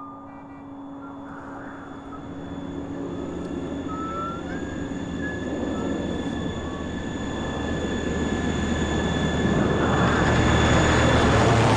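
Jet airliner approaching, its engine noise growing steadily louder into a dense rushing sound, with a thin steady whine over it.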